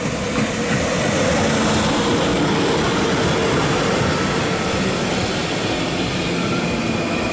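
DB Class 111 electric locomotive hauling a regional train of red coaches running past: a steady rolling rumble of wheels on rails as the locomotive and then the coaches go by, with a faint high tone near the end.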